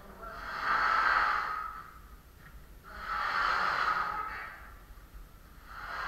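Heavy breathing close to the microphone: three long breaths about two and a half seconds apart, from someone straining while hauling steel beams.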